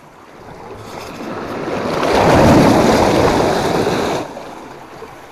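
Sea wave surging in over shoreline rocks, a rushing swell that builds for about two seconds, peaks, and cuts off abruptly about four seconds in.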